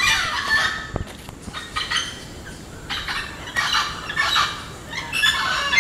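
Birds calling in a tropical tree canopy: about five bouts of loud, pitched calls, some falling in pitch, with short gaps between them.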